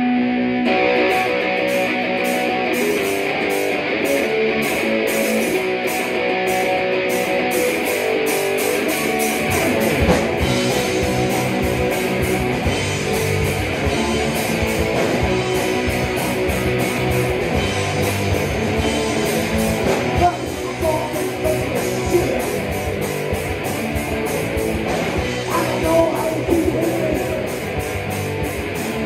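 Rock band rehearsing: amplified electric guitars playing a rock riff together with a bass guitar. The low end fills out about ten seconds in.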